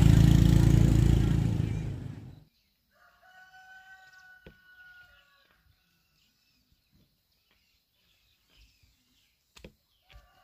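A loud, low engine-like rumble that cuts off about two seconds in, then a rooster crows once, fainter, with a few light clicks near the end.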